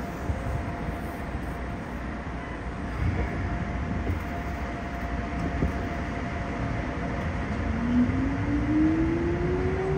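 Keikyu 1500 series field-chopper electric train, heard from inside the car: it stands with a steady hum, then about seven and a half seconds in it pulls away and a motor whine rises steadily in pitch as it accelerates.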